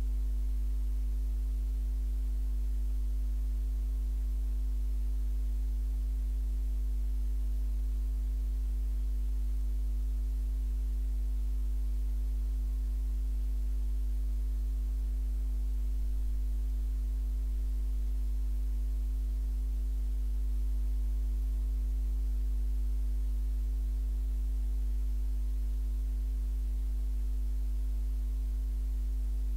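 Steady low electrical hum with several fainter steady tones above it, unchanging; no other sound.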